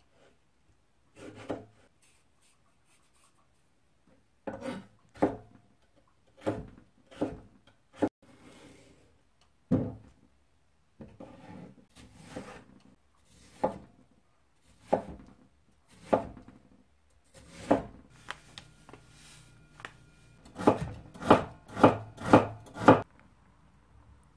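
Kitchen knife chopping cherry tomatoes and watermelon on a wooden cutting board. The strokes come separately, about a second apart, then a quick run of five louder chops near the end.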